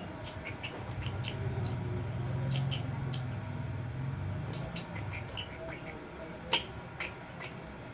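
A pet parrot making small irregular clicks and scratches, with one sharper click about six and a half seconds in, over a low hum in the first half.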